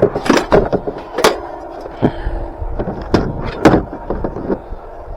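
Camping cooking gear being handled while a small portable camp stove is taken out: a run of sharp knocks and clatters, the loudest a little over a second in and about three and a half seconds in. Wind rumbles on the microphone underneath.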